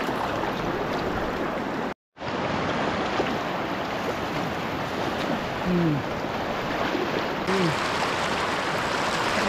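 Fast, shallow river water rushing steadily around a wading person, broken by a sudden drop to silence for a moment about two seconds in.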